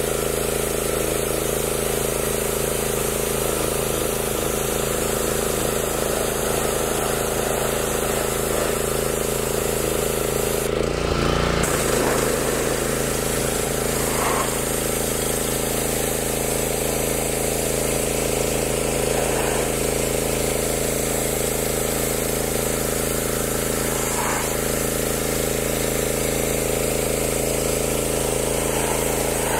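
Honda-powered Simpson MegaShot gas pressure washer running steadily, with the hiss of its green-tip spray blasting water across wooden deck steps.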